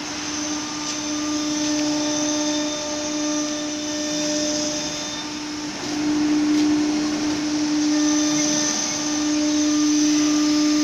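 CNC router spindle running at high speed with a steady high whine over a rushing noise. The whine eases briefly near the start and again about six seconds in, then comes back.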